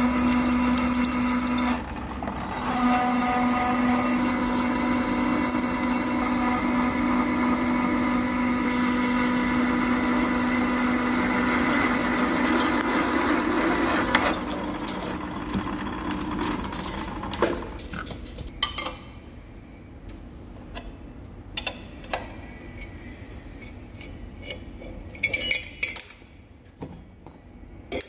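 BM-63VE milling machine drilling the 19 mm oil-port hole through the wall of a honed steel tube: a steady spindle hum with cutting noise. About seventeen seconds in the machine stops, and scattered metallic clinks and knocks follow as the tube is handled on the mill table.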